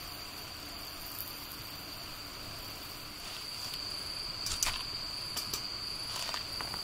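Steady high-pitched chorus of night insects. From about three seconds in, a few sharp crackles from the wood fire in the fire pit.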